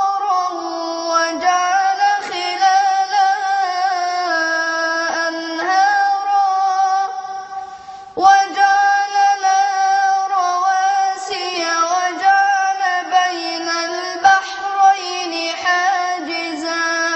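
A boy's high voice reciting the Quran in a melodic, drawn-out style, holding long ornamented notes. The voice fades to a brief pause about eight seconds in, then starts again.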